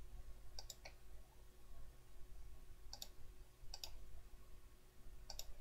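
Computer mouse clicking: four quick pairs of press-and-release clicks, about a second in, near three seconds, near four seconds and near the end, over a faint steady low hum.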